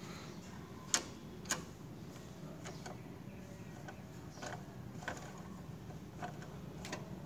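Light metallic clicks from a screwdriver turning the mounting bolt of a motorcycle regulator-rectifier. Two sharper clicks come about a second in, followed by a string of fainter ticks roughly every half second to a second.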